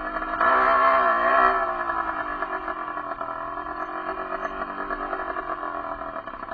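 Derbi enduro motorcycle engine revving under the rider's throttle. It rises sharply about half a second in, wavers up and down for a second, then eases back to a steadier, lower run.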